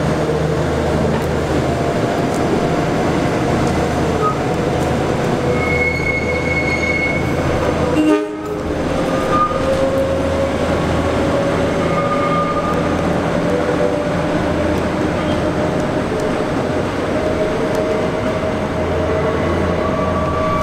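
Diesel work locomotive running steadily at low speed while towing an old wooden gate car, with thin steel-wheel squeals from the curved track coming and going over the steady engine hum.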